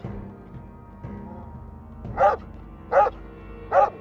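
Dog barking: three short barks about three-quarters of a second apart, starting about two seconds in, over background music.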